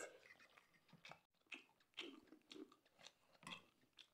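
Faint chewing and lip smacking from two boys eating instant noodles, heard as a string of short, irregular mouth clicks.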